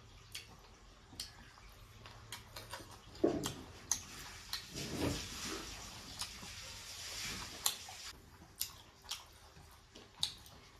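Eating by hand: wet mouth clicks and smacks while chewing, with fingers squishing and mixing rice and pork gravy on a plate. The sharp little clicks come irregularly, with a louder, wetter stretch of sounds a few seconds in.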